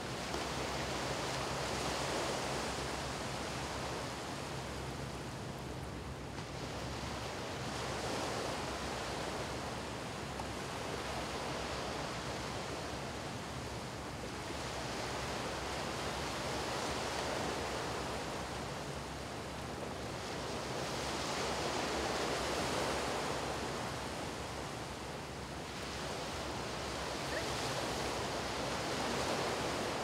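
Low waves breaking and washing up a flat sandy beach: a steady surf hiss that swells and falls back about every four to six seconds.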